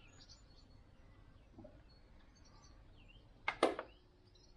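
Quiet background with faint bird chirps, broken about three and a half seconds in by two sharp knocks close together.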